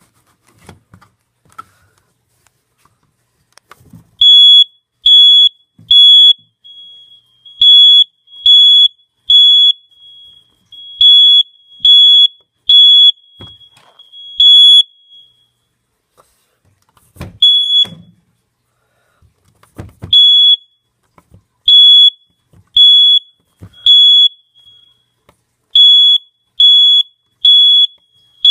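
Smoke detector alarm sounding during a test: loud, high-pitched beeps in groups of three with short pauses between. The beeping stops about halfway through, there are two knocks, and then it starts again.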